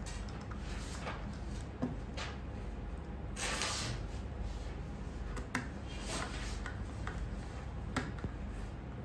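Small clicks and scrapes of a screwdriver and a wire being worked into the screw terminal of a plastic smart-switch module, with a short rustle about three and a half seconds in as the wire is pushed home, over a steady low background hum.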